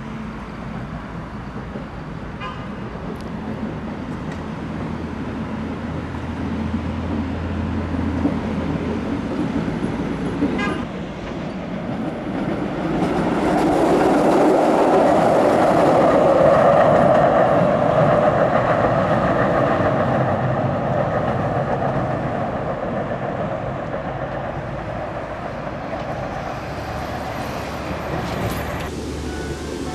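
Tram rumbling across a bridge, growing louder to a peak about halfway through and then slowly fading.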